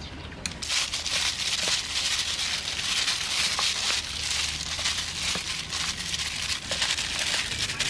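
A hand mixing dumpling filling of shredded carrot, shredded vegetables and chopped spring onion in a plastic tub: a continuous crinkly rustling that starts about a second in.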